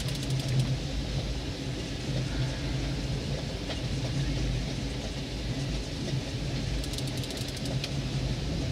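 A boat's motor running steadily as a low hum, under the noise of wind and water. A faint, rapid ticking shows up about seven seconds in.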